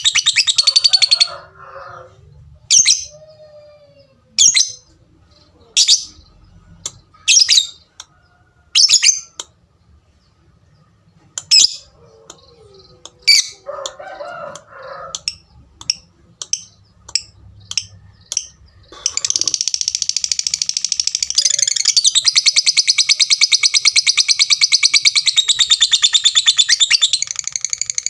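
Lovebird giving sharp single 'tik' calls, spaced out at first and then coming faster, which break about two-thirds of the way through into a long, unbroken, high chattering trill (the 'ngekek') lasting about nine seconds. Two lower warbling calls come in among the ticks.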